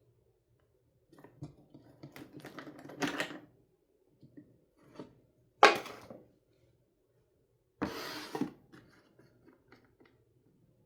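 Wooden toy pizza pieces being handled and knocked together: a run of light clicks and clatters, a single sharp knock about halfway that is the loudest, then another short clatter.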